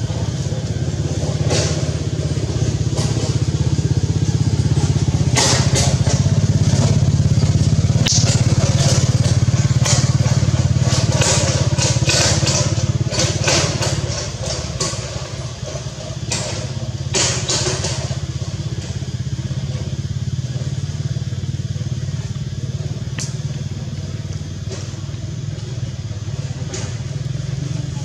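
A steady low motor drone, like a small engine idling, with repeated crackles and rustles on top of it between about 5 and 18 seconds in.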